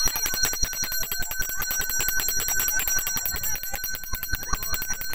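An ice cream vendor's bell rung rapidly and without pause, a fast run of bright metallic strikes that ring on; it signals that ice cream is for sale.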